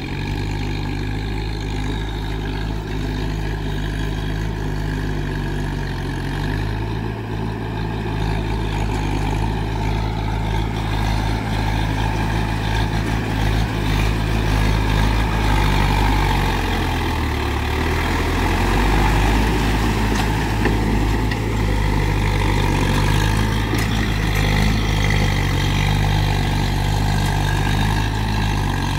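Swaraj 843 XM tractor's diesel engine running steadily as it works through a flooded paddy field, its engine note shifting a few times.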